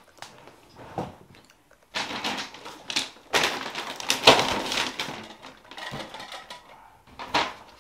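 Brown paper shopping bag rustling and crinkling in uneven bursts as it is handled and lifted, with a few sharp clicks.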